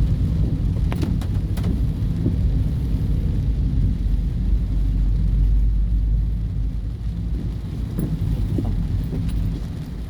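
A car driving in rain: a steady low rumble of road and engine noise that swells around the middle, with a few sharp ticks about a second in.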